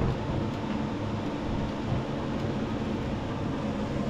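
Shop fan running: a steady rushing noise with a low hum underneath.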